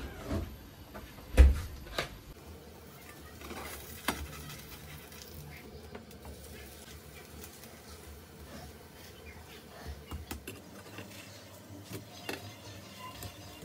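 Spatula knocking and scraping against a nonstick frying pan as a bacon pancake is flipped and pressed down: a few sharp knocks, the loudest about a second and a half in, then lighter taps and scrapes.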